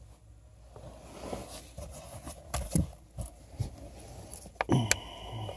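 Light handling clicks and knocks with some rustle as a wiring harness and plastic parts are moved around the blower motor housing under the dashboard. The strongest knocks fall about two and a half to three seconds in and again near the end.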